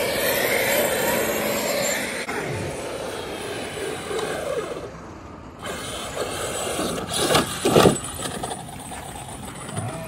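1/5-scale RC race trucks running, their motors rising and falling in pitch as they speed up and slow down; one is loudest in a brief sweep about eight seconds in.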